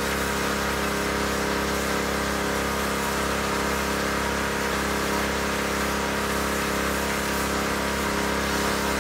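A motor running at a constant speed: a steady, even drone that does not change in pitch or loudness.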